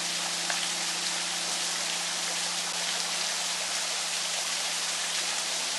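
Small waterfall splashing down over rocks into a creek: a steady rushing hiss of falling water.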